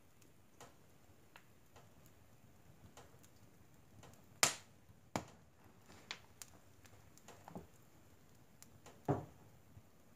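Split logs and pine cones burning in a wood stove, crackling with scattered sharp pops; the two loudest pops come about halfway through and near the end.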